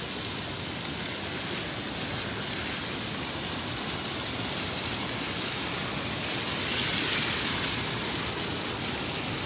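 Shallow river water rushing steadily over its bed, an even hiss. A louder, higher hiss swells and fades about seven seconds in.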